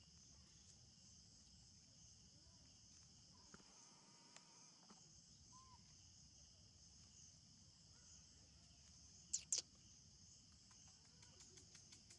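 Faint, steady high-pitched chirring of insects in the background. Two sharp clicks close together about nine and a half seconds in.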